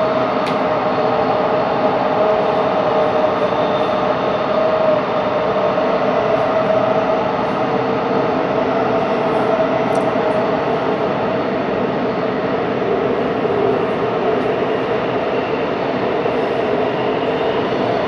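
Shinbundang Line subway train running at speed through a tunnel, heard from inside the passenger car: a steady rush and rumble of wheels on rail with a held hum over it.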